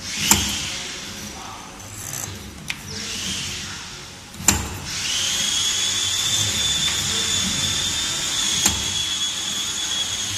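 5-axis CNC wire forming machine running: its servo-driven axes whine, settling into a steady high whine from about five seconds in. Three sharp clacks of the tooling land about four seconds apart.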